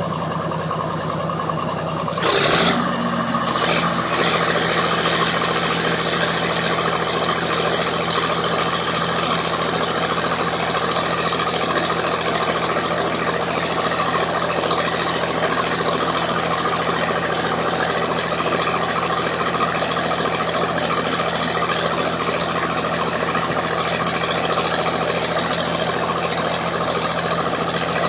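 Stick welding with 3/16-inch 6013 rods: the arc strikes about two seconds in with a sharp burst, then burns with a steady hiss and crackle. Underneath is the running diesel engine of a Lincoln SA-250 engine-drive welder.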